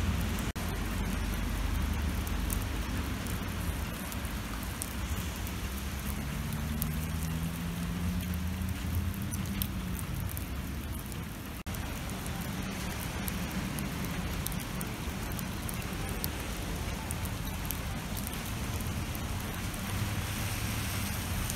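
Steady rain falling on wet pavement and puddles, over a low rumble of city traffic. A vehicle engine's tone rises and falls about a third of the way in.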